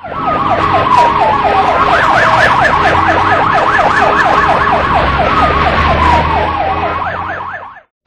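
Emergency-vehicle siren in a fast yelp, rising and falling about four times a second, with a slower falling wail near the start and again about five seconds in; it fades out near the end.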